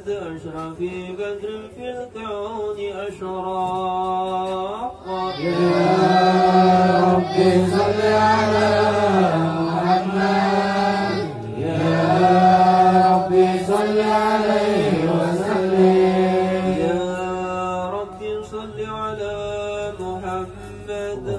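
Unaccompanied male group chanting devotional habsyi verses in Arabic with long held, gliding notes. It is quieter at first, swells as more voices join about five seconds in, and falls back to a quieter chant near the end.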